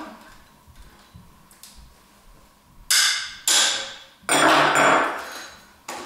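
Parts of a heavy-duty bird feeder being knocked and worked loose by hand during disassembly: a few faint clicks, then four loud knocks from about three seconds in.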